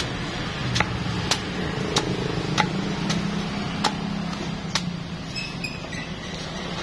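Machete chopping the husk off a young green coconut held on a wooden stump: about eight sharp chops, one every half second to a second, stopping about five seconds in, over a steady low hum.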